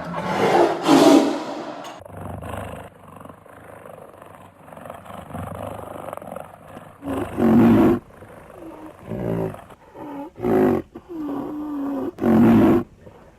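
Big cat roaring and growling, repeated: one loud roar about a second in, then a run of shorter roars from about seven seconds on, one of the loudest near the end.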